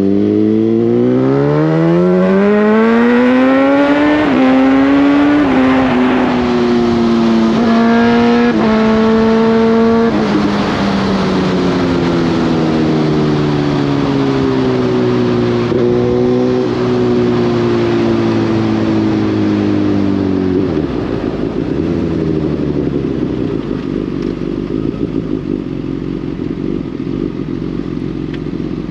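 Suzuki GSX-S1000 inline-four engine and exhaust pulling hard, pitch rising with several quick gear changes in the first ten seconds. Then the revs fall away on the overrun, settling to a low, steady note about twenty seconds in.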